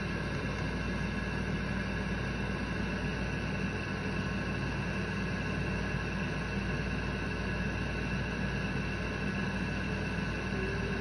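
Steady low hum with a hiss above it, with no distinct knocks, clicks or splashes.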